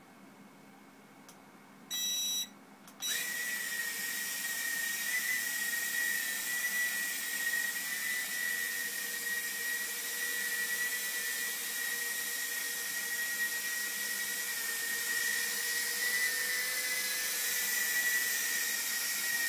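Furibee H801 mini quadcopter taking off on auto-start: a short beep about two seconds in, then its four tiny motors and propellers spin up into a steady high-pitched whine as it hovers and flies, the pitch wavering slightly near the end.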